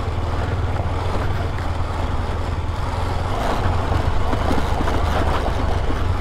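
KTM 250 Adventure's single-cylinder engine running steadily as the motorcycle is ridden along an off-road trail, with a haze of wind and tyre noise over it.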